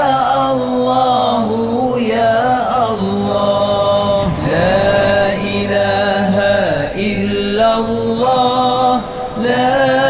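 Slow, melodic Islamic zikr chanting by a voice repeating drawn-out devotional phrases, each held for about two to three seconds, with short breaks between them.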